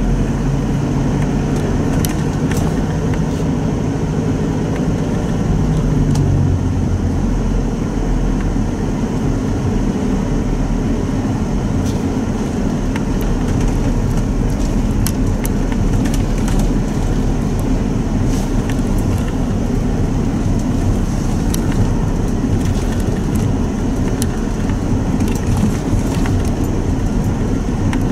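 Mitsubishi Pajero Sport 2.5 four-cylinder turbodiesel running under way and its tyres rolling on packed snow, heard from inside the cabin. The engine note drops a little about six seconds in, and faint light ticks come and go.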